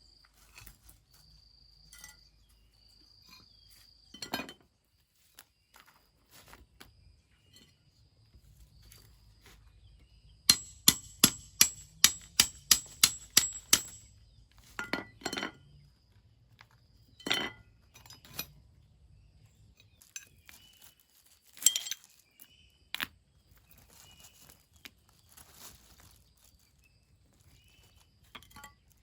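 Hammer driving nails into wood: a quick run of about ten ringing metal-on-metal strikes near the middle, with scattered single knocks before and after.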